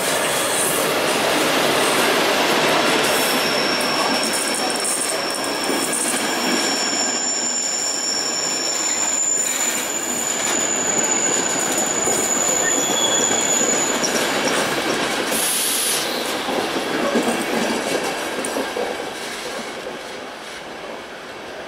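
Electric-hauled passenger train rolling slowly past along a platform: a steady rumble of wheels on rail with clicks over the joints, and the wheels squealing in high steady tones for several seconds. The sound fades near the end as the last coaches move away.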